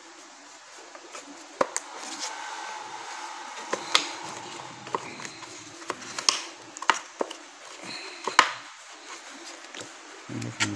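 Parts of an old electric fan being handled and fitted together: scattered sharp clicks and knocks of plastic and metal, the loudest about four, six and eight seconds in.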